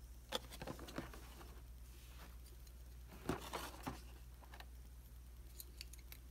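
Cardboard toy box handled and turned over in the hands: two short clusters of taps and scrapes, about half a second in and again past three seconds, with a few faint ticks near the end.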